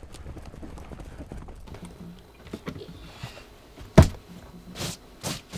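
Light clicking of livestock hooves on hard, dry ground over a soft rustle, then a loud sharp knock about four seconds in, followed by a few softer knocks.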